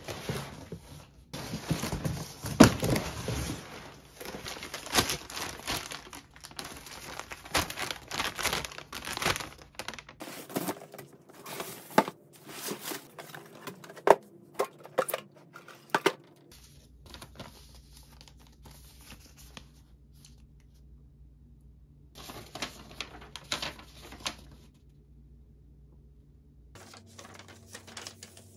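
A big cardboard parcel being opened by hand: packing tape tearing and cardboard flaps and packing paper crinkling, busiest in the first ten seconds. After that come scattered knocks of boxes being handled and a short burst of rustling a little before the end.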